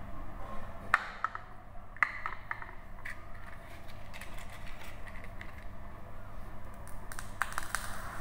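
Sharp clicks, a few single ones early on, then a quick run of clicks in the last second as a handheld lighter is flicked and lights. A low steady hum runs underneath.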